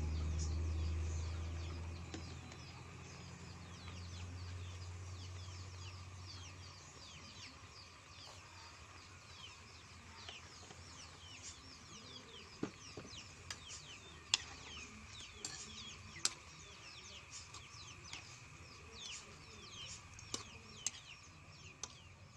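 Small birds chirping over and over in quick short calls, with a low rumble that fades out over the first several seconds and a few sharp clicks in the second half.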